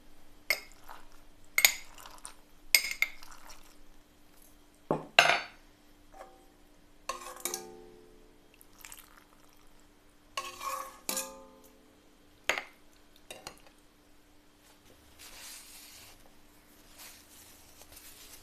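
Steel ladle clinking against a stainless steel pot and a glass jar as pickled peppers and brine are ladled into the jar: a string of separate sharp clinks, two of them ringing briefly.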